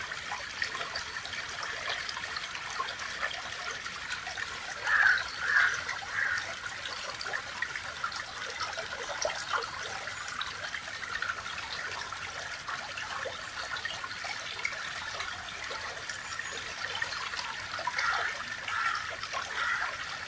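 Flowing water trickling steadily, with a few brief louder splashy swells about five to six seconds in and again near the end.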